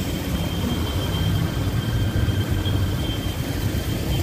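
Steady low rumble of an electric passenger boat under way on a canal, with a faint steady high whine running through it.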